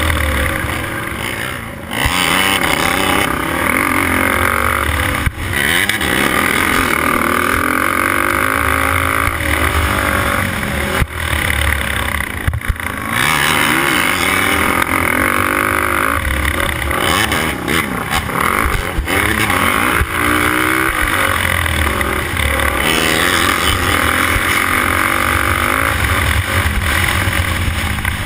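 Race quad's engine at full racing effort, heard from the rider's helmet, its pitch climbing and falling over and over as it revs through the gears, with a few brief drops in level where the throttle is let off.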